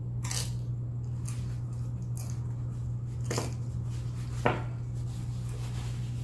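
A few light clicks and taps of tableware being handled, the sharpest about four and a half seconds in, over a steady low hum.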